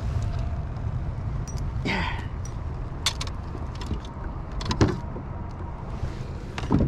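Wind rumbling on the microphone, with scattered clicks and a few sharper knocks from rod, line and hands as a crappie is swung in and grabbed beside a kayak; the loudest knocks come near five seconds in and just before the end.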